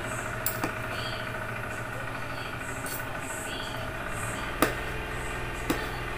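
A steady low mechanical hum, like a motor running, with a few sharp clicks and knocks of kitchen knives against fruit, cans and a metal bowl. The loudest knock comes about three quarters of the way in.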